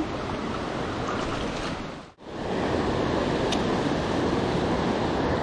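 Steady rush of a shallow river running over rocks and small rapids. The sound drops out for a moment about two seconds in, then comes back the same.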